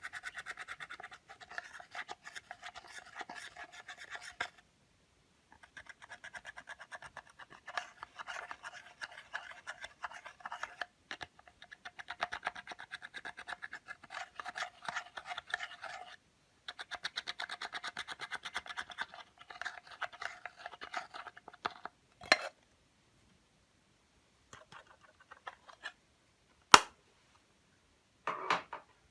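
Clear slime being mixed with makeup, making dense runs of small sticky clicks and pops with short pauses between them. Near the end these thin out to a few scattered clicks and one sharp snap.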